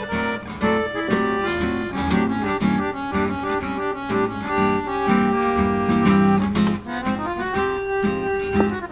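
Upbeat gypsy-swing background music: a steady plucked-string rhythm under a melody of held notes.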